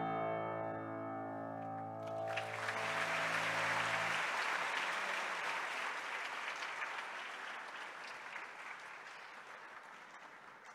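A Bösendorfer grand piano's final chord ringing out and dying away over about four seconds. Audience applause breaks in about two seconds in and slowly fades.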